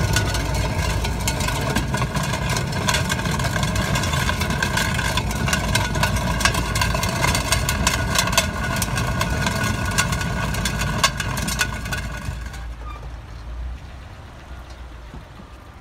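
A small sedan creeping along on a tilted, damaged rear wheel. Steady road and engine rumble runs under a dense, continuous clatter and a steady whine. All of it fades over the last few seconds.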